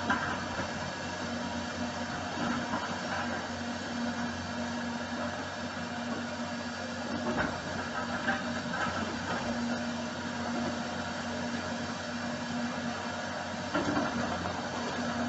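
High-reach demolition excavator's diesel engine running steadily under a constant hiss, with a couple of brief knocks of debris, one near the middle and one near the end.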